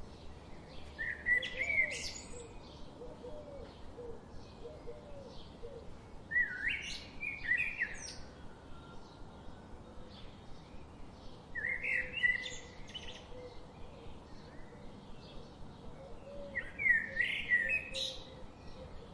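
Songbirds singing: a loud song phrase comes four times, about five seconds apart, over a steady scatter of fainter chirps from other birds.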